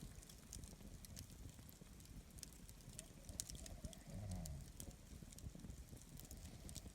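Wood campfire crackling faintly with scattered small pops, and one short low sound that falls in pitch about four seconds in.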